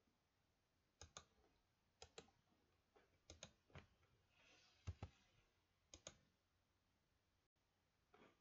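Faint clicks of a computer mouse button, mostly in quick pairs, about once a second for several seconds.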